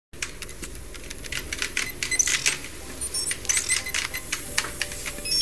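Typing sound effect: a quick, irregular run of keystroke-like clicks with short high electronic chirps, over a faint steady tone.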